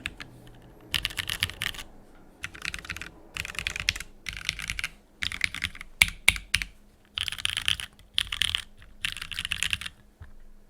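Typing on a Keycult No.1 rev.2 TKL mechanical keyboard with Jwick black linear switches on an aluminium plate and ePBT blank keycaps, in short bursts of quick keystrokes separated by brief pauses, with a few louder single key strikes near the middle.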